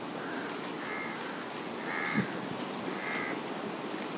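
A bird calling: four short calls roughly a second apart, the third the loudest, with a brief soft knock about two seconds in.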